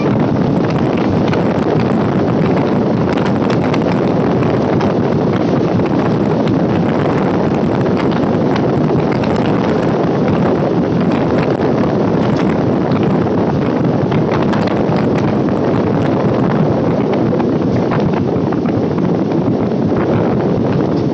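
Electric multiple unit local train running steadily at speed, heard from an open door or window, with wind buffeting the microphone. Its wheels click now and then over the track.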